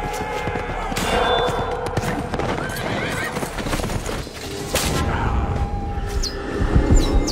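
Horses whinnying and hooves pounding in a mounted charge, with sharp knocks and clatter of combat, as mixed for a film battle soundtrack; it grows loudest from about five seconds in.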